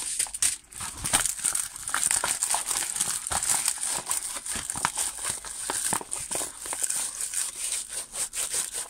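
Clear plastic packaging crinkling and rustling as a rolled diamond-painting canvas is handled and unwrapped: a dense, irregular run of crackles.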